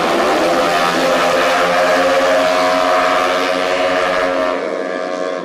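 115cc automatic racing scooters running hard at high revs, a steady engine wail that thins out and drops a little near the end.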